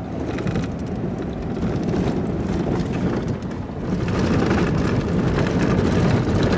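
A vehicle driving along a dirt road: a steady rumble of tyres and engine with many small clicks and rattles, getting louder about four seconds in.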